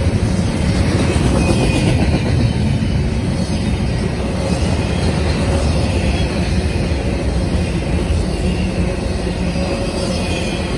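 Freight train cars rolling past: a steady loud rumble and clatter of steel wheels on rail, with a faint high wheel squeal now and then.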